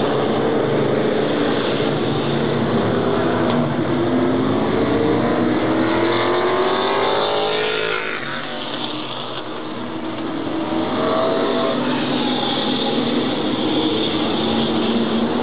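Oval-track stock cars lapping with their engines running continuously. One car's engine note climbs and then drops sharply as it passes, about eight seconds in. The sound eases briefly before the next cars come round.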